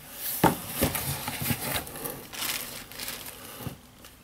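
Paper packaging rustling and crinkling as hands lift a card off tissue paper inside a cardboard box, with several sharper crackles.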